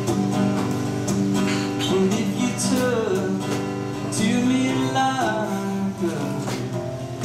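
A steel-string acoustic guitar strummed in a steady rhythm, with a man singing over it.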